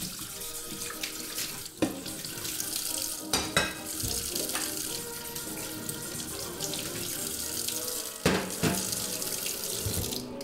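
Kitchen tap running into a stainless steel sink while dishes are washed by hand, with a few clinks and knocks of dishware. The water is shut off near the end.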